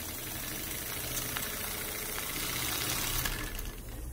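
Wilesco-built twin-cylinder compound model steam engine running on live steam: a steady hiss of steam with faint clicking from the running engine, growing slightly louder and then dropping away near the end.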